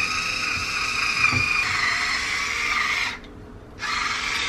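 Cordless electric wine opener's motor whirring steadily as it winds the corkscrew into a wine bottle's cork and draws it out. It stops about three seconds in and starts again half a second later.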